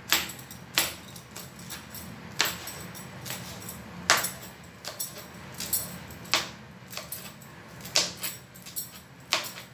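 Chef's knife slicing a green chilli on a plastic cutting board: sharp knocks of the blade hitting the board, one every second or so at an uneven pace.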